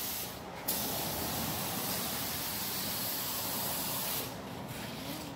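Compressed-air paint spray gun hissing as it sprays paint. It breaks off briefly near the start, runs steadily, then drops away and sputters about four seconds in.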